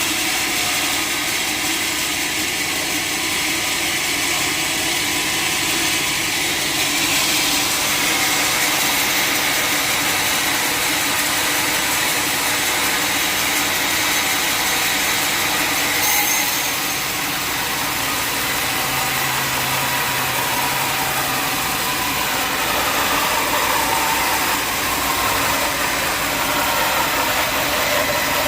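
Sawmill machinery running steadily with a loud, even mechanical noise and hum; the pitch and mix shift slightly a few times.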